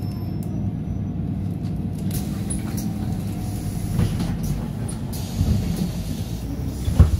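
City bus engines running as a red bus moves off and a blue articulated bus pulls in: a steady low rumble. A short loud thump comes near the end.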